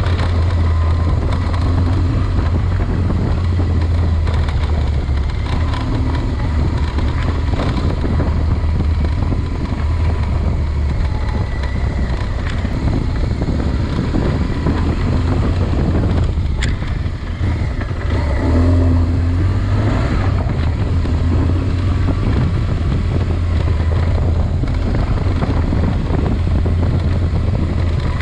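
Engine of a Parpaillon pulling a plough, running steadily under load, with its low hum easing briefly about a third and again about two-thirds of the way through.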